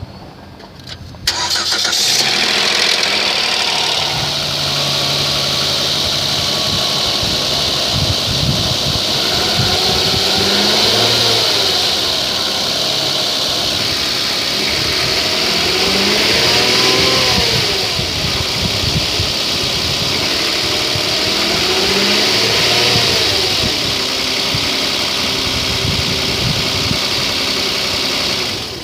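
2011 Kia Sedona engine starting about a second in, then running loudly with a hissing, rattly noise over the engine note. The noise is the unexplained startup noise the owner is asking about. The engine is revved up and back down three times.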